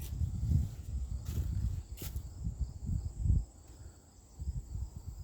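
Wind buffeting the microphone in uneven low gusts that ease off about three and a half seconds in and then pick up again.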